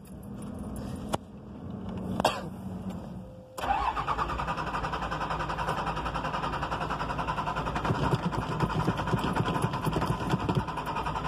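Cummins diesel engine cold-started: a low hum and a click, then about three and a half seconds in the starter engages with a brief rising whine and the engine catches at once, settling into a loud, rattly idle.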